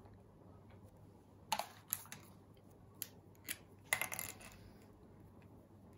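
A handful of short taps and brief scratchy strokes of writing, scattered from about a second and a half in to just past four seconds, over a faint steady hum.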